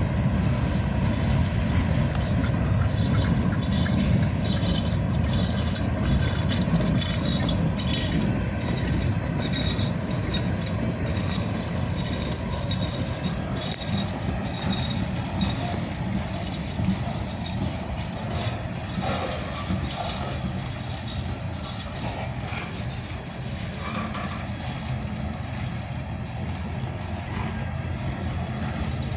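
Freight cars rolling past at trackside: a steady rumble of steel wheels on the rails, with frequent short clicks and clanks from the wheel sets and couplers.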